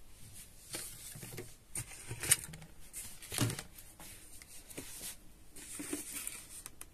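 Faint handling noise: soft rustles and a few light taps and knocks as grocery cartons and plastic bottles are moved about, scattered unevenly.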